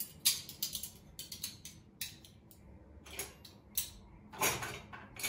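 Dishes and cutlery clinking and knocking as they are handled: a string of irregular sharp clinks with short pauses, thickest in the first second and again near the end.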